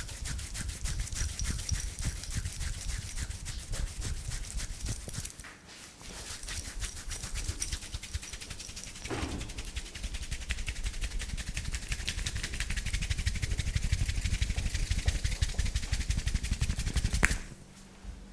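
Rapid rhythmic slapping and patting of a barber's hands during an Indian head massage, many strokes a second. It pauses briefly twice, builds louder in the second half and stops abruptly after one sharp, loudest slap near the end.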